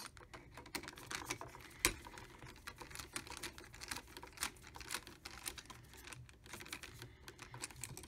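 Light, irregular clicking and ticking of a screwdriver turning the brass terminal screws on a single-pole light switch as the switch and its wires are handled, with one sharper click about two seconds in.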